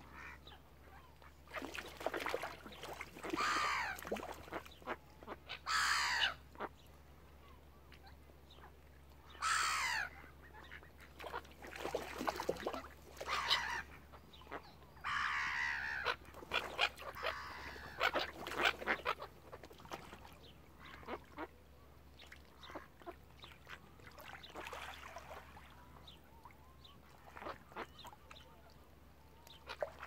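Mallard ducks and gulls calling in a noisy group, with loud calls every couple of seconds that thin out and grow quieter in the last third.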